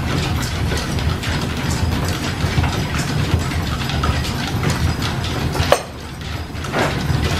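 Belt-driven machine-shop machinery running off a steam-powered line shaft, giving a steady mechanical clatter of gears and belts with many small clicks. A sharp click comes a little past halfway, and the noise is briefly quieter just after it.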